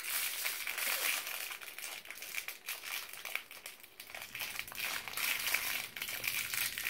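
Small plastic toy wrapper crinkling and crackling steadily as fingers work it open to get at a doll outfit.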